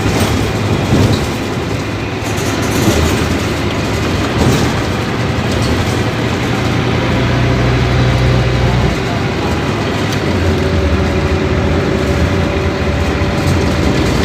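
Scania K250UB bus's diesel engine running steadily with road and body rumble; the low engine note strengthens and then changes abruptly about nine seconds in.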